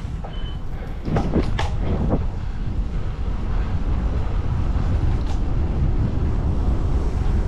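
Steady wind rumble on an action camera's microphone with road noise from a moving road bike. Briefly, between about one and two seconds in, a short pitched sound that bends up and down is heard over it.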